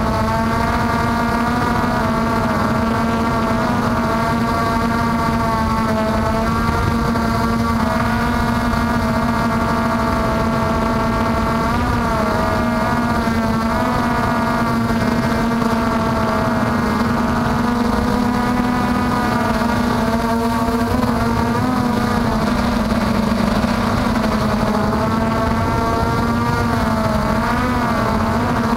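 MJX Bugs 3 quadcopter's four brushless motors and propellers whining steadily in flight, heard from the camera on board, the pitch dipping and rising briefly a few times as the throttle changes.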